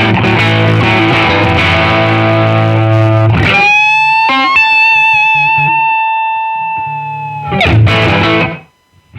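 Electric guitar with Lundgren Heaven 57 humbucking pickups playing a riff of low chords, then a single high note bent up and held with vibrato for about four seconds. A final strummed chord is cut off, leaving a brief gap just before the end.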